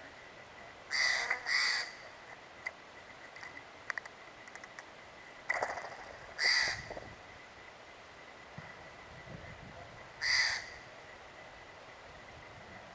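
Steller's jay giving harsh, rasping calls: two in quick succession about a second in, another pair around six seconds, and one more near ten seconds.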